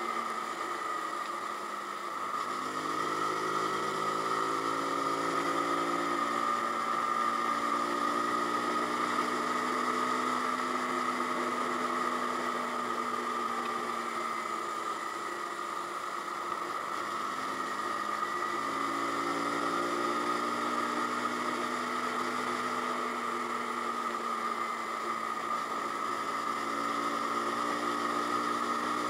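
Zontes G1X 125's single-cylinder engine running under way. Its pitch climbs twice as the bike accelerates, then holds steady, over a constant high hum and wind and road noise.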